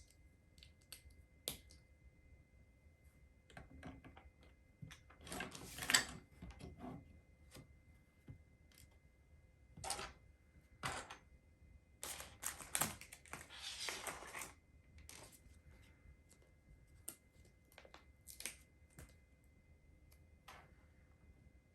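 Small plastic LEGO pieces clicking and rattling as they are handled and pressed together. The sharp clicks are scattered, with two longer stretches of rattling about five and twelve seconds in.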